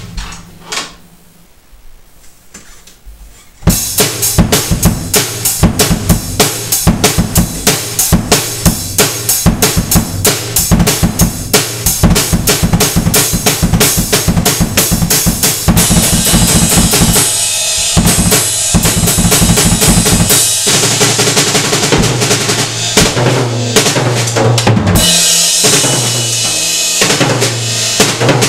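Drum kit played fast, snare and bass drum, the bass drum with the muffling taken out of it. After a short lull near the start, rapid strokes set in about four seconds in, and cymbals wash over them from about halfway.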